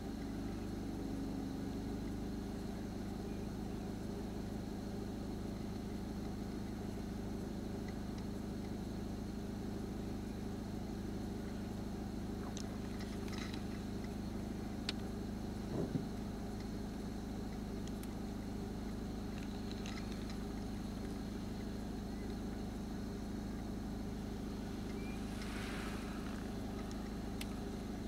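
Car engine idling steadily with a low, even hum, and a couple of faint clicks a little past halfway.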